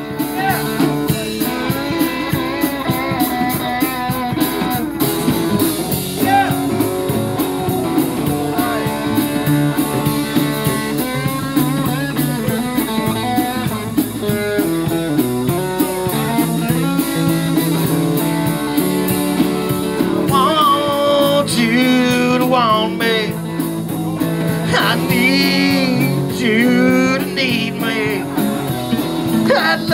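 Live music: a guitar played with a steady rhythm and a voice singing over it, the singing clearest in the second half.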